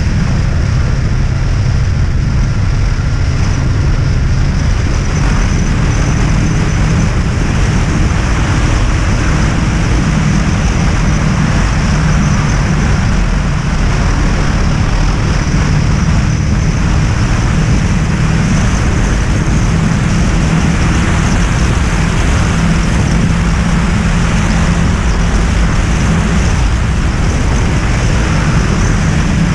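Honda VFR800's V4 engine running steadily at a cruise, with wind rushing over the microphone on the moving motorcycle.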